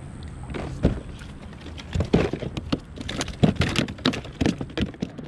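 A flathead splashing as it is hauled out of the water, then thrashing against the plastic kayak deck: a string of irregular sharp slaps and knocks starting about half a second in.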